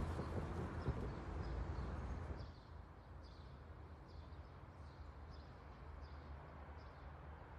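Faint outdoor ambience with small birds chirping over and over. A fuller background noise drops away about two and a half seconds in, leaving the quieter chirps.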